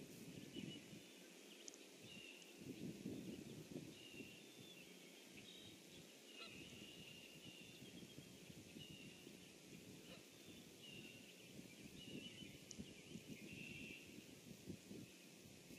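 Faint outdoor ambience: a short, high call repeated about once a second by an unseen animal, over a low rustling noise.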